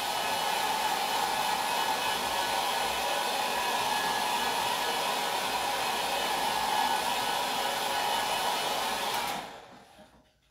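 Electric hot-air dryer blowing steadily, drying freshly stencilled paint so the next stencil layer can go on top. It switches off about a second before the end.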